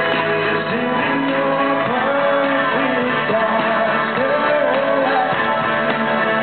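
Loud, steady song: backing music with a singing voice gliding over it.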